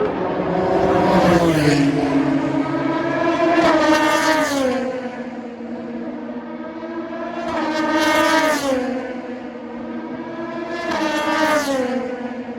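Endurance race cars passing at speed one after another, about four flybys, each engine note swelling and then falling in pitch as the car goes past.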